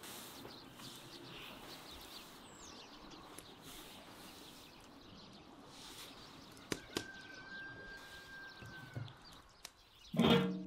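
Faint outdoor background with light bird chirps. Near the end there is a sharp metallic clank that rings briefly as the cast-metal door of a brick wood-fired oven is handled.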